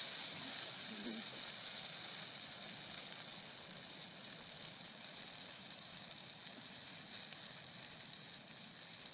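Big gasoline-fuelled fire of piled Christmas trees burning with a steady hissing crackle that slowly gets quieter.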